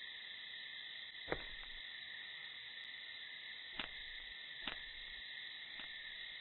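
Faint steady high chorus of night insects, with a few soft knocks: one about a second in and two more around four and five seconds in.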